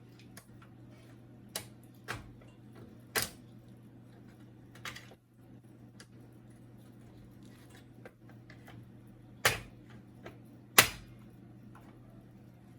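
Sharp plastic clicks and knocks from an HP LaserJet P1102's casing, its covers and latches being worked loose by hand. About half a dozen come at irregular intervals, the loudest two near the end, over a low steady hum.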